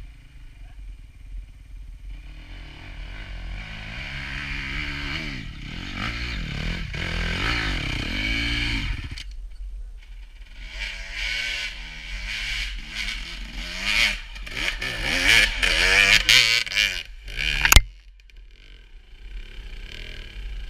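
Enduro dirt bike engines revving hard, pitch rising and falling as the riders fight up a steep slope, in two long spells. A single sharp crack near the end is the loudest sound.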